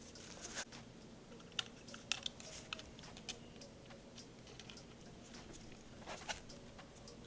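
Faint small clicks, ticks and brief scrapes of a spring-loaded plunger and other small parts being worked into a Sar 9 compact pistol frame by hand.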